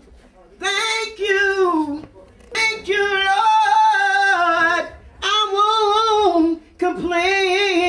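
A woman singing solo and unaccompanied, in four long held phrases with a wavering vibrato and short breaths between them.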